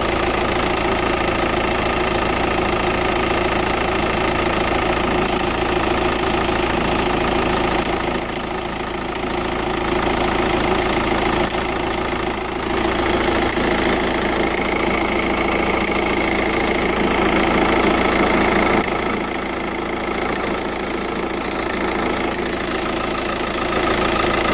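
TDI turbo-diesel engine running with a ticking noise. Its speed rises slightly past the middle and drops back a few seconds before the end.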